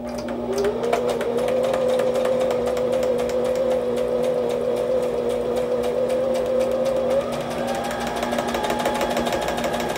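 Brother XL2800 sewing machine running slowly on a straight stitch, sewing through craft-foam hearts. Its motor whine rises as the pedal goes down, then holds steady over a rapid needle ticking.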